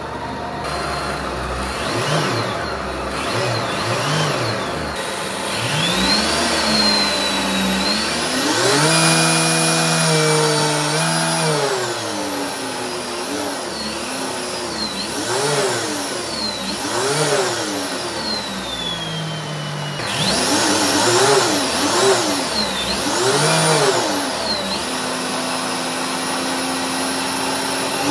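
Electric motor of a clutch test rig whining as a 3D-printed ABS clutch with a plywood friction plate is engaged and released, the pitch rising and falling again and again. It comes in quick swells about every second and a half, with a longer steady stretch at high pitch in the middle.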